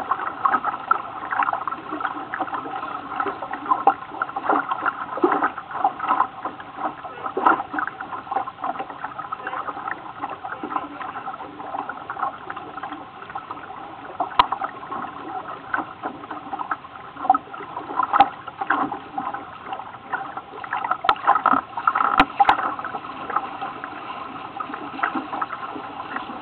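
Water splashing and lapping against the hull of a small boat under way, with a few sharp knocks now and then.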